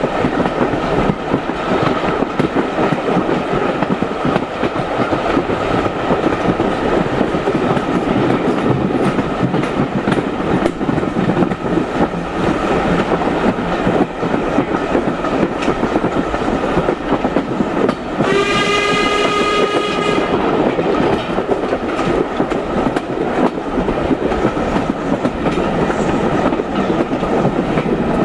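Heritage steam train running at speed behind an LB&SCR Terrier 0-6-0T, a steady rumble and rattle of coaches on the track. About two-thirds of the way through, a steam whistle sounds once for about two seconds.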